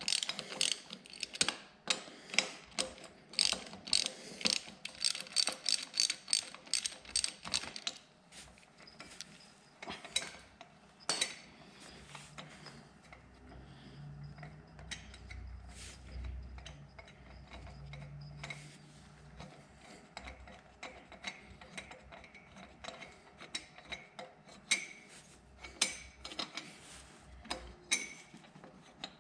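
Hand ratchet wrench clicking as fasteners are spun off, in quick dense runs for the first several seconds, then sparser clicks and light metal tool handling.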